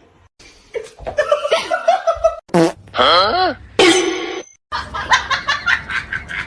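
People laughing in short fits, broken by brief pauses, with a fast run of laughing pulses in the last couple of seconds.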